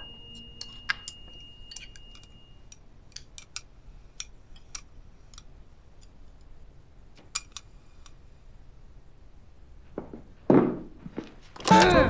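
Scattered light clicks and clinks of eating utensils against a pot and a glass bowl as someone eats noodles, with a few louder noisy sounds about ten seconds in. Music comes in just before the end.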